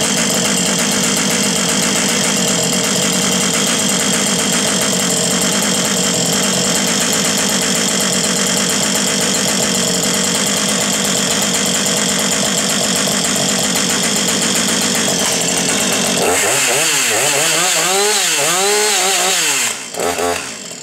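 Husqvarna 555 two-stroke chainsaw engine running steadily, then revved up and down about four times in quick succession near the end before it drops off.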